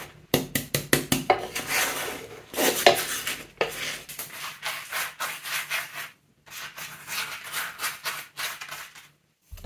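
Wooden spatulas scraping and knocking on a nonstick frying pan as a flatbread is pressed and turned, in a quick string of short strokes. After a brief break about six seconds in, softer strokes as a brush spreads oil over the cooked flatbreads.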